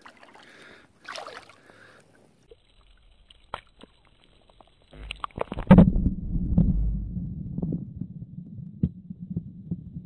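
Muffled underwater sound of water moving against a submerged camera microphone: a few sharp clicks, then from about halfway through a low rumble with irregular thumps and sloshing as a hand holds a largemouth bass in the water beside it.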